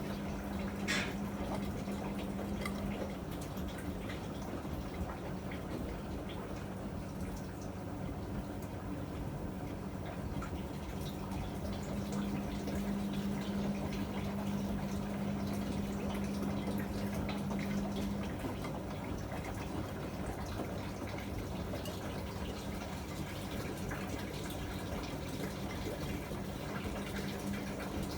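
Miele MedicWash W2585 washing machine running a wash cycle: water sloshing and splashing in the drum, with a steady motor hum that comes and goes as the drum turns.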